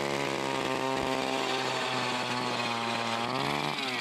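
Gas-powered ice auger running at high revs while drilling a hole through the ice. Its pitch holds steady, rises briefly near the end, then drops away.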